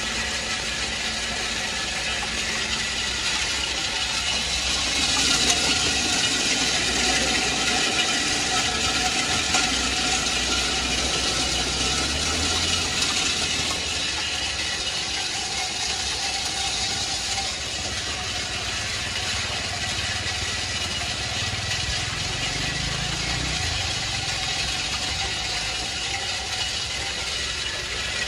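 Industrial snail-tail cutting machine running: its motor drives the drum while the snail shells rattle and grind against the cutters in a steady din, a little louder a few seconds in.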